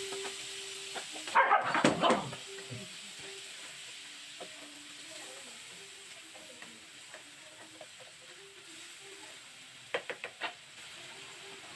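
Diced red onion sizzling in hot oil in a frying pan while it is stirred with a plastic spatula. There is a louder clatter of onion and spatula scraping the pan about one and a half to two seconds in, and a few quick taps of the spatula on the pan near the end.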